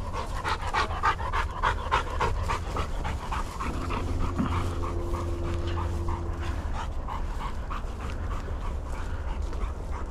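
Hunting dog panting quickly and rhythmically, about four to five breaths a second, over a steady low rumble.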